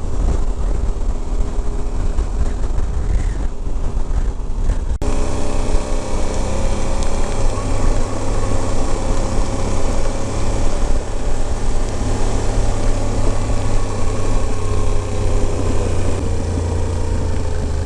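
Yamaha Ténéré 700's parallel-twin engine running steadily under way, with wind and road noise. The sound changes abruptly about five seconds in, then the engine runs on steadily.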